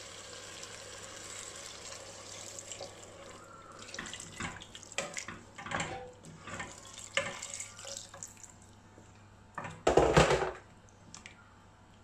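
Water poured from a jug into a stainless steel pot of mutton keema and potatoes, splashing steadily for the first few seconds. Then a wooden spoon stirs and scrapes against the pot in short strokes, with a brief louder clatter about ten seconds in.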